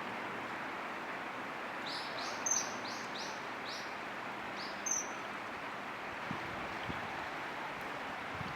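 Common kingfisher calling: a quick run of about six short, high, piping notes, then one more about a second later, over a steady background hiss.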